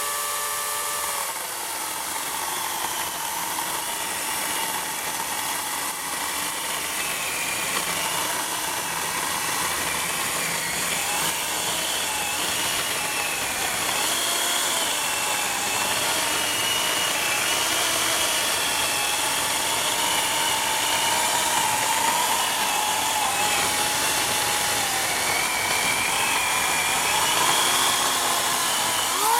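Portland 14-inch electric chainsaw running as it cuts through apple wood. Its motor whine wavers up and down in pitch as the cut loads it, then falls away right at the end.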